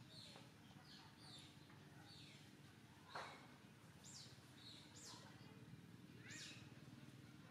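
Faint outdoor birdsong: several short, high, downward-sweeping chirps in quick succession, one louder about three seconds in, over a low steady background hum.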